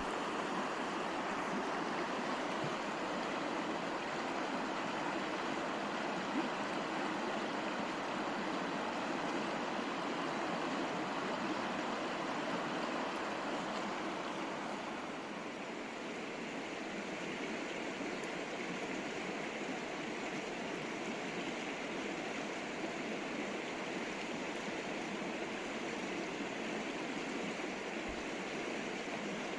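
River water flowing and rushing over rocks, a steady continuous sound that softens slightly about halfway through.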